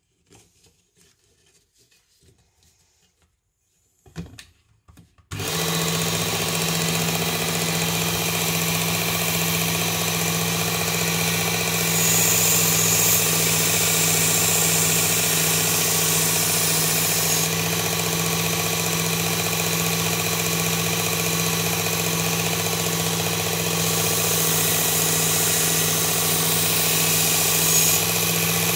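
Quiet handling clicks while the belt is changed, then about five seconds in a Work Sharp Ken Onion blade grinding attachment starts abruptly and runs steadily on its fine belt, a low motor hum under an even hiss. The hiss grows brighter in stretches as a knife blade is worked against the belt.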